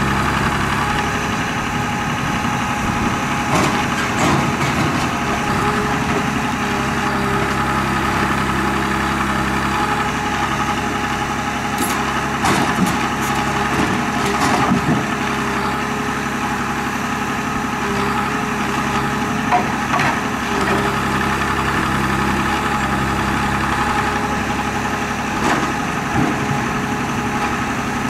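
Rottne F13-C forwarder's 220 hp diesel engine running steadily while its crane works, with a few short knocks and clunks as logs are handled in the grapple.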